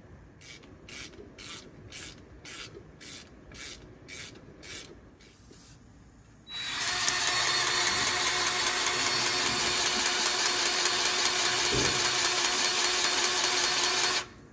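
A hand ratchet wrench clicking through about a dozen quick strokes on the drive shaft hardware. After a pause, a loud, steady rushing noise runs for about eight seconds and then cuts off suddenly.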